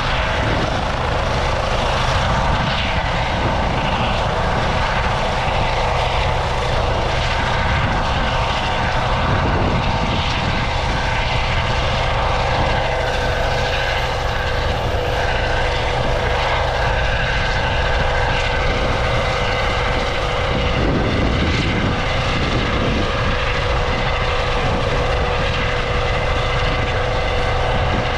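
Helicopter taking off, its engine whine and rotor noise loud and steady.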